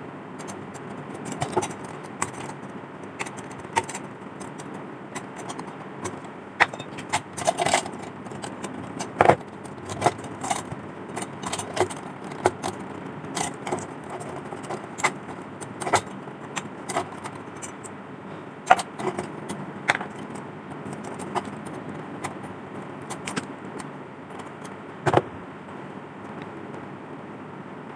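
Small metal parts clinking and knocking in irregular taps, a few sharper knocks among them, over a steady background hiss.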